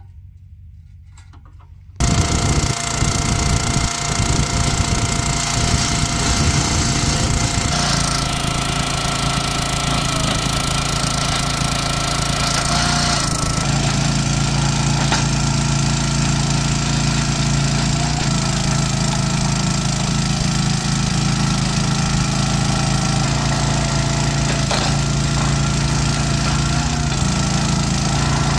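A gas log splitter's small engine running steadily, cutting in abruptly about two seconds in, with its note shifting a little now and then as the hydraulic ram is worked to split firewood rounds.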